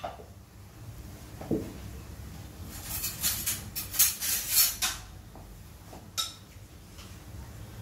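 A serving spoon clinks and scrapes against dishes as food is dished onto a plate. There are a few scattered knocks and a thud, then a quick run of clinks and scrapes for about two seconds in the middle, and one more clink a little later.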